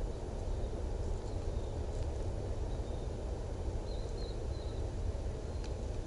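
Steady low outdoor rumble, with a few faint high chirps about four seconds in.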